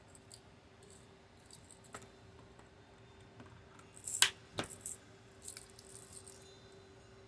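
Small metal clicks and clinks of jump rings and beading tools being handled while someone searches a container for smaller jump rings. There are scattered light ticks, with two sharper clicks about four seconds in.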